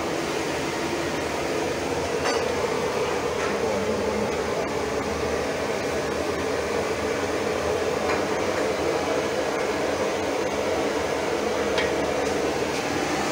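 A steady background hum, with a few light clinks of a metal ladle against a steel pot and plate as peanut sauce is spooned over gado-gado.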